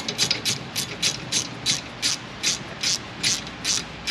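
Hand ratchet clicking steadily, about three clicks a second, as it runs a brake caliper bolt in.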